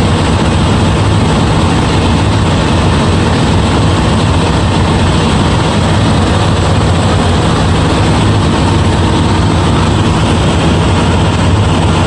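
Semi-truck's diesel engine idling steadily, kept running to jump the reefer unit's low battery.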